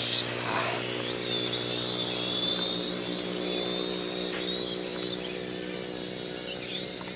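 F69 toy quadcopter drone's motors and propellers whining in flight in its slowest speed mode, the high whine wobbling up and down in pitch as it adjusts and manoeuvres.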